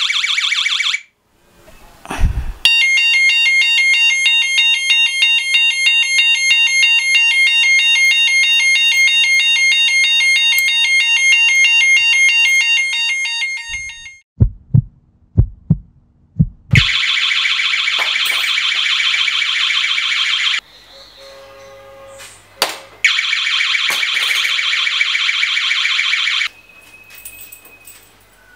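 Homemade touch-triggered security alarm sounding: a loud, high, warbling electronic alarm tone that goes off in several stretches, the longest about eleven seconds. Between stretches there is a run of about five heavy thuds.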